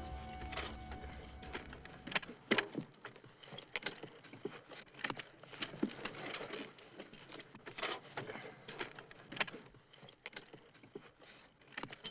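Long-handled hand tools striking and scraping dirt and brush: irregular sharp strikes, a few a second.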